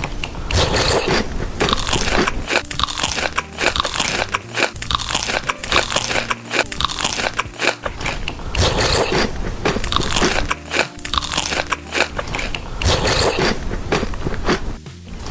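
A person chewing and crunching crisp food close to the microphone, with dense, irregular crunches throughout.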